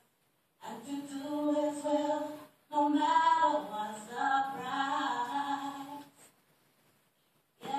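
A woman singing solo into a microphone, with no accompaniment heard, played back from a screen. She sings two long phrases of held, sliding notes, starting about half a second in, then pauses for over a second near the end.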